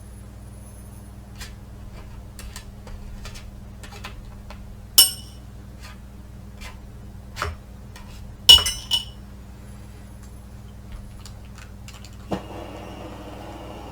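Small metal pieces being handled, with light knocks and clicks and two bright ringing clinks about five and eight and a half seconds in, the second one ringing twice. Near the end a steady rushing noise with a faint high whine starts up.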